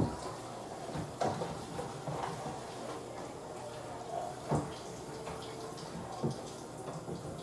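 A few soft, irregular taps and knocks over a steady background hiss, from small makeup items being handled and set down.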